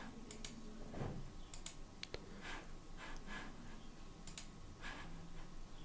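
Faint clicks of a computer mouse, several in quick pairs like double-clicks, over low room hum.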